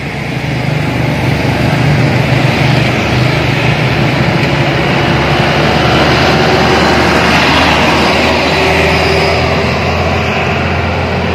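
Road traffic passing close by: motorcycles and then a minibus driving slowly past. Their engines and road noise make a loud, steady din with a low engine hum throughout.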